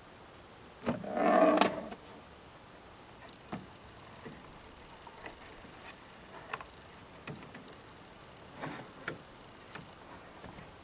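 A harsh, rough scraping rasp lasting about a second, then a few light clicks and knocks at irregular spacing: mechanical handling of a 1958 Royal Aristocrat manual portable typewriter.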